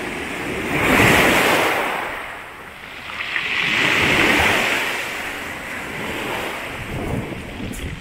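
Storm waves breaking on a pebble beach and washing up over the stones, in two surges: one about a second in, a second around four seconds in.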